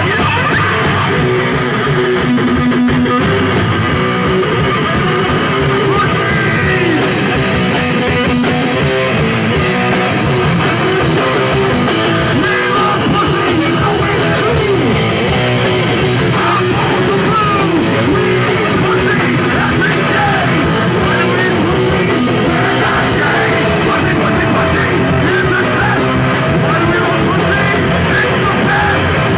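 Live punk rock band playing loudly and without a break, with electric guitar prominent.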